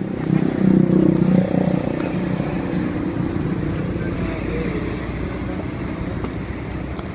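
A steady, low engine rumble, loudest in the first second and a half and then settling into an even drone.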